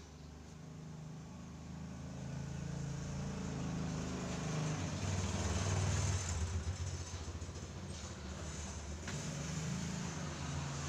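A low, steady engine-like rumble that swells to its loudest about five seconds in and then eases off a little.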